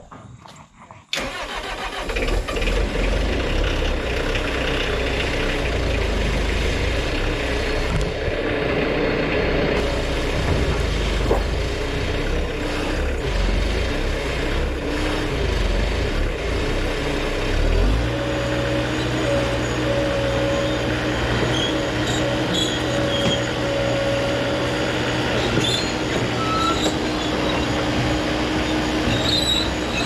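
Bobcat S185 skid steer's diesel engine starting about a second in and then running steadily. From about 18 s a steady low hum and a higher whine join it as the machine is worked and driven on its steel tracks.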